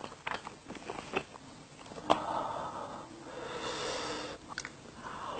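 Close-miked eating sounds from a person eating spicy cheese tteokbokki: soft mouth clicks from chewing, a sharp click about two seconds in, then two breathy rushes of about a second each.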